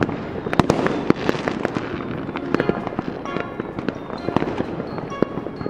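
Cartoon magic-spell sound effect: a dense, fizzing crackle full of sharp little pops, like sparklers. Twinkling chime tones come in over the second half.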